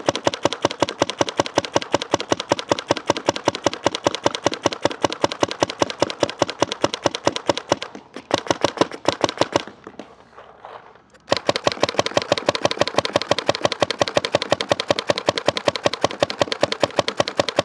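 GOG eNMEy mechanical paintball marker fired on compressed air in rapid semi-automatic strings, roughly eight shots a second, with a break of about three seconds halfway through.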